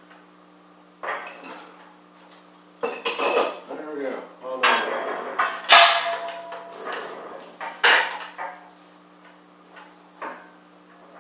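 Steel chain hoist and beam trolley being handled, clinking and rattling metal on metal in irregular bursts, the loudest clank about halfway through with a brief ring after it.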